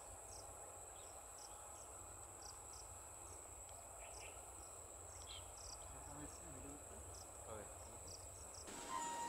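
Quiet steady high-pitched insect drone with short chirps repeating about twice a second, and a few faint bird calls in the middle. Near the end a louder steady hum comes in.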